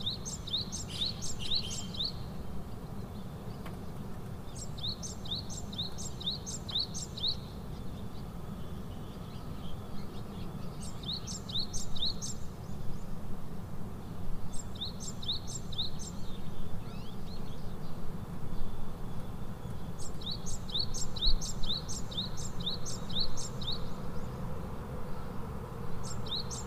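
A bird singing: short phrases, each a quick run of high, rising chirps, repeated every few seconds, about six times. Under it runs a steady low rumble.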